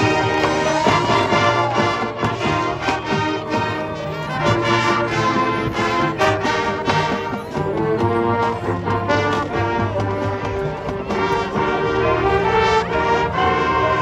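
High school marching band playing live: the brass section carries held chords and melody over percussion hits and front-ensemble mallet instruments.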